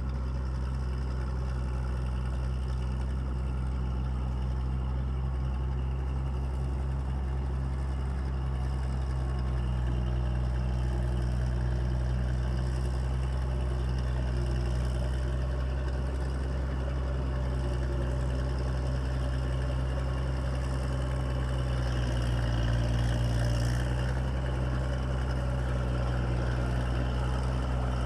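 Caterpillar D6B bulldozer's diesel engine idling steadily, swelling a little louder for a couple of seconds about three-quarters of the way through.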